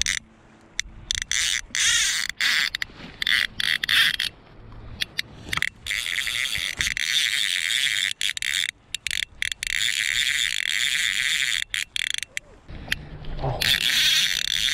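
Click-and-pawl fly reel ratcheting in stops and starts while a hooked steelhead is played on the fly rod, each stretch of clicking broken by short pauses.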